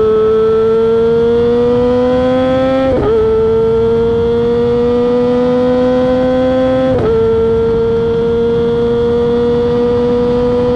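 Kawasaki ZX-25R's 250 cc inline-four running loud through a LeoVince aftermarket exhaust at high revs under acceleration. The engine note climbs slowly, drops sharply about three seconds in and again about seven seconds in, as at gear upshifts, then climbs again.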